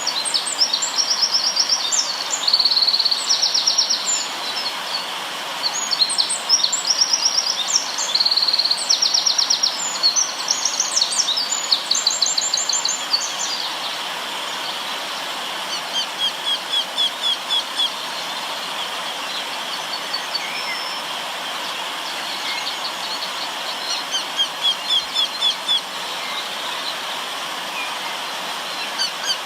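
River water flowing steadily, with songbirds singing over it. Rapid trills and chirps come thick for the first dozen seconds or so, then a bird repeats a run of evenly spaced notes twice later on.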